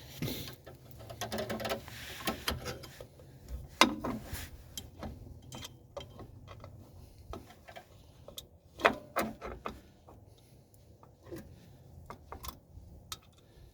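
Irregular metallic clicks and clinks of drum brake hardware and hand tools being handled and fitted, with two sharper knocks, about four seconds in and again about nine seconds in.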